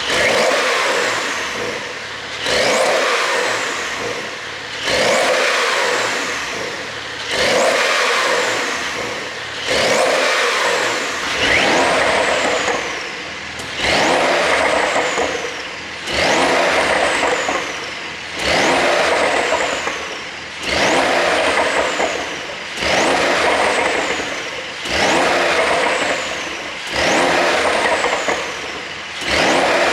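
A Porsche 911 992 Carrera 4's twin-turbo flat-six is blipped to high revs and let fall again, over and over, roughly every two seconds. Each time the revs drop, the pops and crackles from an ECU pop tune can be heard on the overrun.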